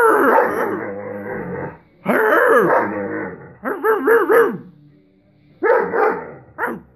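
Irish Wolfhound 'talking': a run of wavering, rising-and-falling woofs and moans in five bursts, the first the longest and a quick triple in the middle. It is the dog asking to play.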